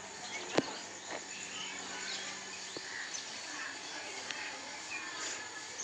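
Outdoor yard ambience with scattered bird chirps over a steady low hum, and a single sharp knock about half a second in.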